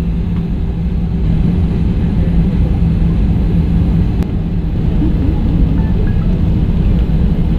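Airbus A320 cabin noise while taxiing: a steady low rumble of the engines at taxi power with a constant hum running under it.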